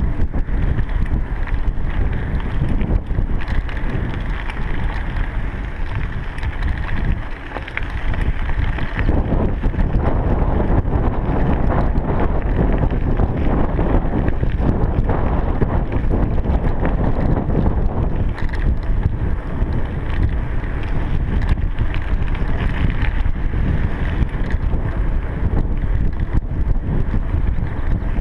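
Wind buffeting a chest-mounted GoPro Hero 3's microphone while riding a bicycle: a loud, continuous rushing rumble that eases briefly about seven seconds in.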